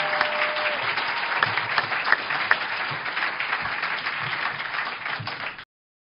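Audience applause, a dense patter of many hands clapping, which cuts off suddenly about five and a half seconds in.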